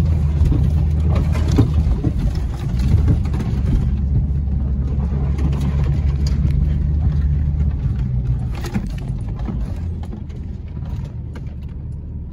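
Jeep driving along a rough dirt trail, heard from inside the cab: a steady low engine and drivetrain rumble with scattered knocks and rattles as it goes over bumps, easing off after about nine seconds.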